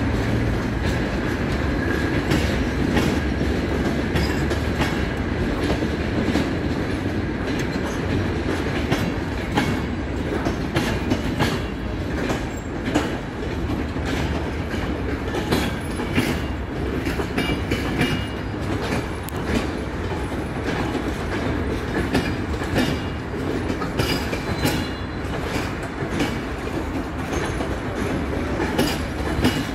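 Romanian CFR passenger train coaches rolling past, a steady rumble with the wheels clattering in many sharp, irregular clicks over rail joints and switches.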